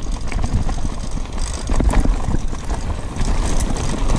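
Bicycle being ridden over a rough track: a steady rumble of wind on the microphone, with frequent rattles and knocks from the bike jolting over stones.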